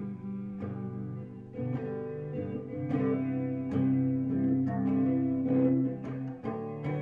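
Instrumental break in a live song: a plucked string instrument playing chords, notes struck and left ringing as the chords change, with no singing.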